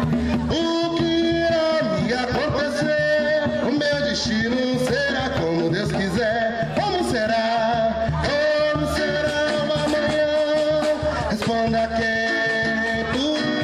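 Live samba: a man singing with an acoustic guitar, backed by hand drums including a tantã.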